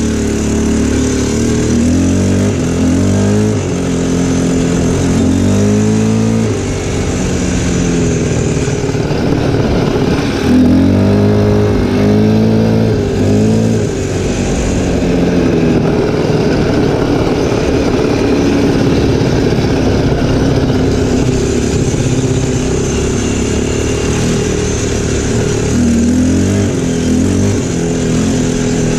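ATV engine running while riding, its pitch rising and falling again and again as the throttle is opened and eased off.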